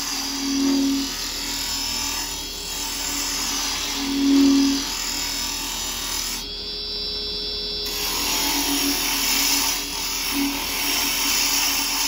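A round carbide lathe chisel held flat is roughing a spinning beech blank on a wood lathe: a steady hissing cut as the wood is hogged off, over the lathe's running hum, which swells a few times. The cutting drops away for about a second near the middle.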